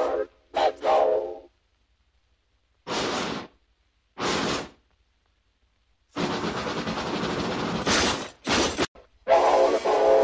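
Cartoon steam locomotive sound effects: a short steam whistle toot, then two separate puffs of steam hiss, a long hiss of escaping steam, and the whistle sounding again near the end.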